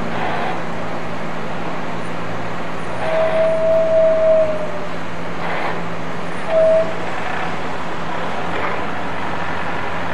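A mobile crane's engine running steadily under load as it holds a railway coach aloft. A held high tone lasts nearly two seconds from about three seconds in, and a short one follows near seven seconds.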